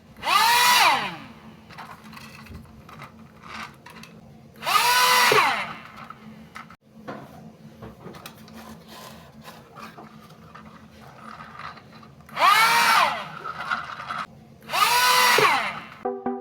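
A small electric motor, like a handheld drill, spun up in four short bursts. In each burst it whirs up in pitch and winds down within about a second. Between the bursts there is a faint steady hum and a few light clicks.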